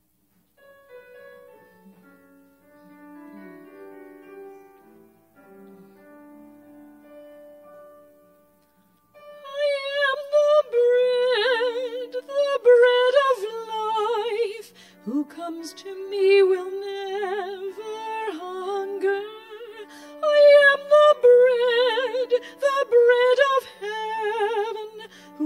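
Music: soft held instrumental notes, then about nine seconds in a solo female voice starts singing with strong vibrato over the accompaniment.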